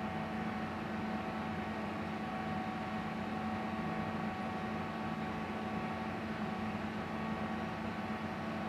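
A steady hum with several steady tones over an even hiss, unchanging throughout.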